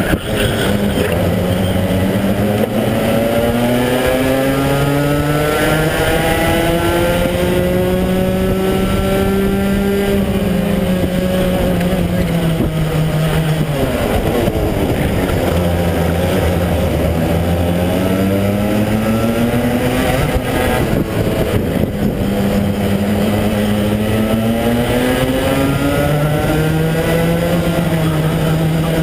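Rotax-powered racing kart's engine heard onboard at full race pace. Its pitch climbs on the straights and drops sharply into corners several times, with other karts' engines close by.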